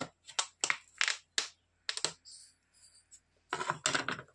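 Plastic containers being handled on a worktop: a run of sharp, separate clicks and knocks, then a quick clatter of several near the end.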